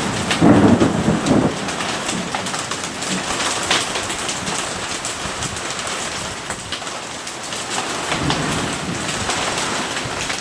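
Heavy rain pouring down steadily in a thunderstorm, with a loud rumble of thunder about a second in and a fainter swell of thunder around eight seconds in.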